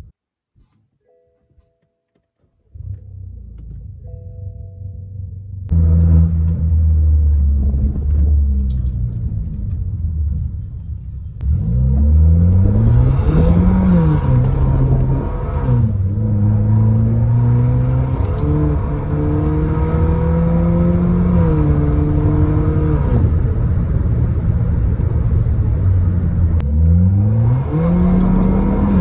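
BMW 116i's turbocharged petrol engine starting up and running at a low rumble. From about twelve seconds in it is accelerated repeatedly, its pitch climbing and dropping several times as the revs rise and fall.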